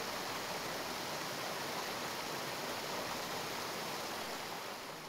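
Rushing stream water churning over and around rocks: a steady, even rush that fades down slightly near the end.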